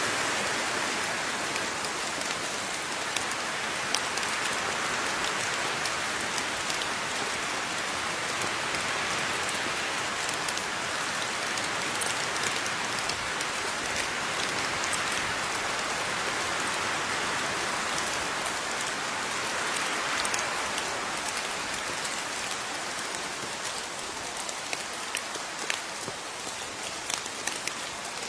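Steady rain falling, a continuous hiss with individual drops ticking sharply here and there. It eases slightly in the last few seconds, where the separate drop hits stand out more.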